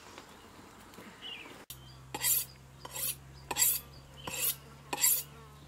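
A knife being honed on a sharpening steel: five short scraping strokes of the blade along the steel, about one every 0.7 seconds, starting about two seconds in.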